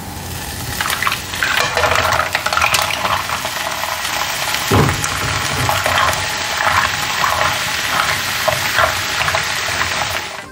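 Minced garlic sizzling in hot fat in a nonstick pan as green mussels are tipped in and tossed with a spatula, their shells clattering against the pan over the steady sizzle. A heavier knock comes about five seconds in.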